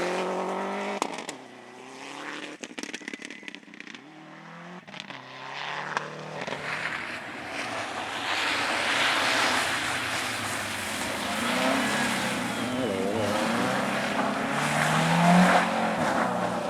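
Car engines on a track: one car's engine fades away in the first seconds, then another approaches with its engine revving up and down and tyre noise, loudest shortly before the end.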